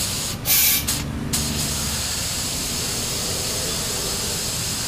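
Compressed air hissing at the air valve of a reverse osmosis storage tank whose rubber bladder is blown up into a dome. Two short, loud spurts of hiss come in the first second and a half, then a steady hiss.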